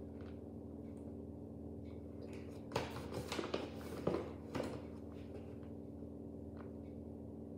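Cooking utensils and packaging being handled while cocoa powder is measured: a cluster of soft clicks and rustles a little under three seconds in, lasting about two seconds, over a steady low hum.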